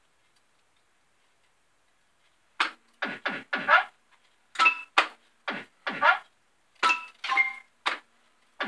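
Bell-Fruit Games Family Guy fruit machine's electronic sound effects as the reels spin and stop. After about two and a half seconds of near silence comes a quick run of short blips, each a falling sweep with a thunk in it, in twos and threes about half a second apart.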